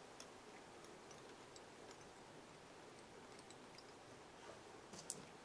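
Near silence: quiet room tone with a few faint, scattered ticks from fingers winding tying thread onto a hook held in a fly-tying vise.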